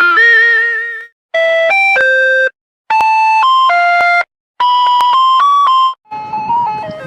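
Electronic ice cream truck jingle in chopped phrases: a held note, then three short bursts of a few steady notes each, separated by brief silences. A new version of the tune starts near the end with a low rumble beneath it.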